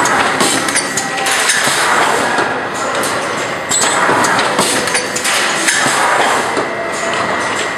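Automatic PVC blister thermoforming machine running: metal knocks and clicks over a steady rushing noise, swelling in a repeating cycle about every two seconds.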